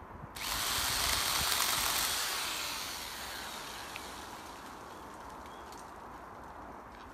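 MacAllister MPS750S-2 electric pole saw with a 20 cm bar and chain starting suddenly and running for about two seconds, then winding down with a falling whine that fades slowly.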